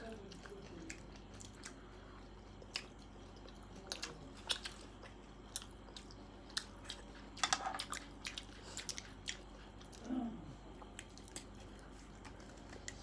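Close-up chewing and crunching of panipuri, with scattered crisp clicks and a thicker cluster of crunches about halfway through. A brief hummed sound comes near the end.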